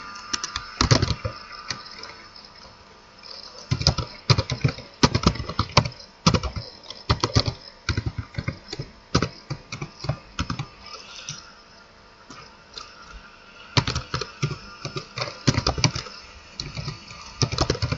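Typing on a computer keyboard: runs of quick keystrokes, pausing twice, briefly about two seconds in and again for a couple of seconds past the middle.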